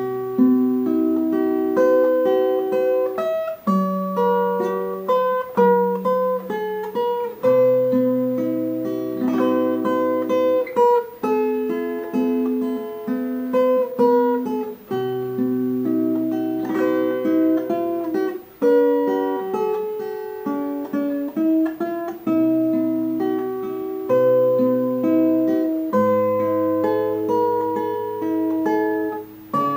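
Instrumental background music: sustained chords that change every second or two.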